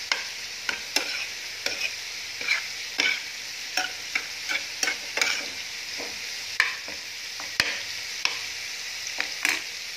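Chicken gizzards sizzling as they stir-fry with lemongrass and chili in a frying pan. A spoon scrapes and knocks against the pan in quick, irregular strokes.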